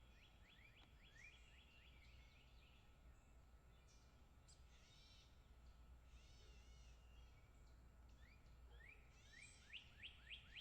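Faint sparrow chirps: a quick run of short, rapid chirps at the start and again near the end, with a few scattered chirps between.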